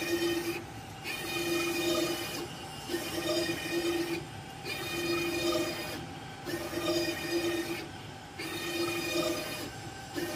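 CNC fabric cutting machine's gantry drive motors whining steadily at one pitch as the inkjet head travels along the quilting lines, breaking off briefly about every two seconds as the head stops and changes direction.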